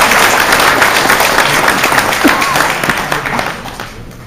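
Audience applauding, with one pair of hands clapping close by over the clapping of the room; the applause dies away near the end.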